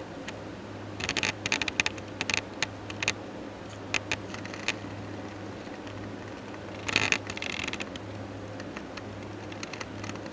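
Quiet room tone: a steady low hum with scattered small clicks and rustles, in small clusters about a second in, around four seconds and around seven seconds.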